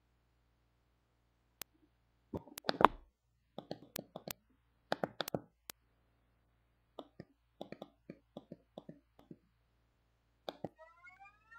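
Irregular clicks and light taps, several in quick clusters and then more spaced out. Near the end a phone ringtone begins with rising electronic tones.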